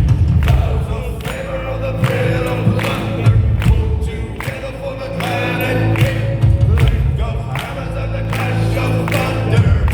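Live band music with many voices singing together like a choir over pounding drums: a crowd singing along with the band.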